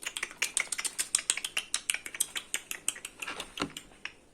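A rapid series of light clicks, about eight a second, running for about three and a half seconds and then stopping.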